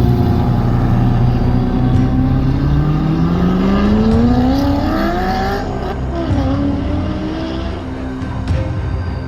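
Corvette V8 running steadily, then accelerating hard from about three seconds in, its pitch climbing steeply. It drops suddenly at a gear change just before halfway and runs on at lower revs.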